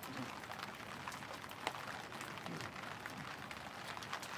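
Steady rain pattering on surfaces, with many scattered single-drop ticks.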